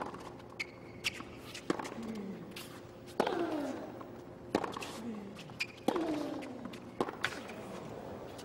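Tennis rally on a hard court: racket strikes on the ball about every second and a half, six in all, several followed by a player's short grunt falling in pitch.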